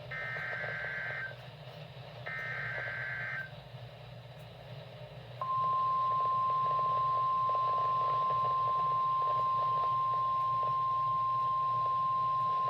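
Emergency Alert System SAME header: two bursts of the screeching digital data tone, each about a second long and two seconds apart, over radio hiss. About five seconds in, the single long, steady NOAA Weather Radio 1050 Hz attention tone begins, louder than the bursts, marking the start of a severe thunderstorm warning.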